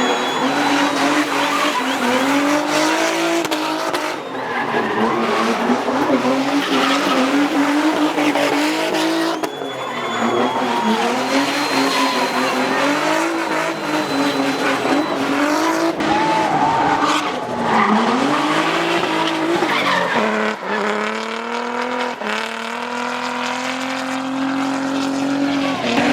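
Twin-turbo Nissan 350Z drift car's engine revving hard, its pitch rising and falling every second or two, with tyres squealing and skidding. In the last few seconds it holds a steadier high rev.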